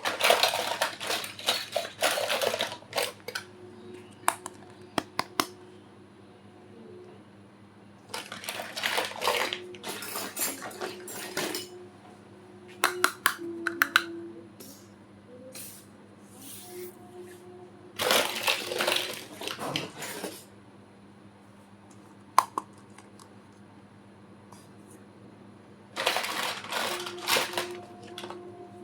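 Small toy kitchen pieces and their packaging being handled, in five bursts of clicking, clinking and rustling with quiet pauses between.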